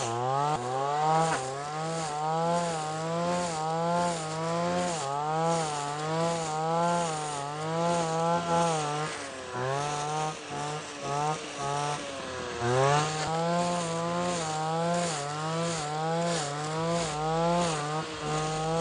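Husqvarna 226R brushcutter's two-stroke engine running at high speed while cutting dry grass. Its whine rises and falls about once a second as the head sweeps through the grass.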